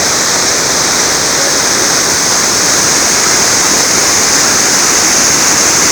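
Whitewater rapids on a river rushing over rocks: a steady, loud roar of churning water.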